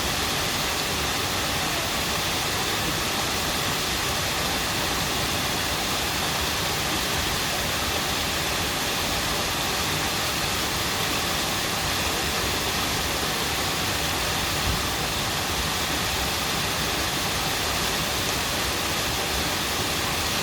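A stream flowing and babbling: a steady, unbroken rush of water.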